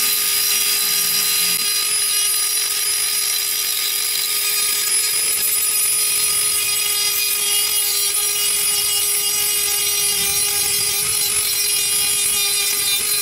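Dremel rotary tool with a sanding drum running steadily, lightly sanding the inside edge of a cut-out circle in sheet metal: a steady high-pitched whine with the hiss of abrasive on metal.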